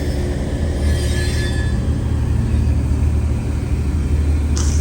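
Mauritanian iron ore freight train running on the rails, heard from an open wagon: a steady, loud low rumble with a short sharp knock near the end.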